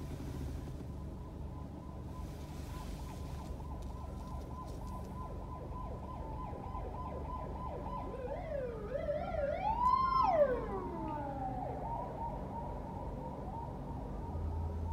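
An emergency-vehicle siren wails briefly over a low steady traffic hum, wavering up and down, peaking about two-thirds of the way through, then falling away.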